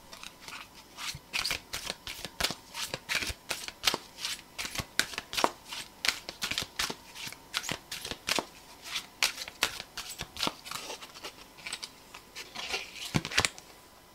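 A deck of tarot cards being shuffled by hand: a long run of quick, crisp card slaps, two or three a second.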